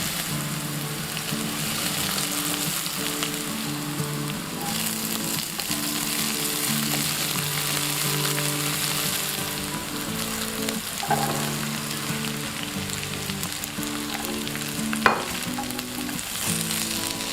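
Food sizzling steadily in hot oil while being stir-fried, with a sharp knock about 15 seconds in. Background music plays underneath.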